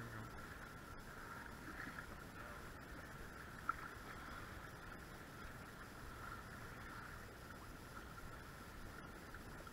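Faint steady wash of choppy water around a small fishing boat, with one light tick about four seconds in.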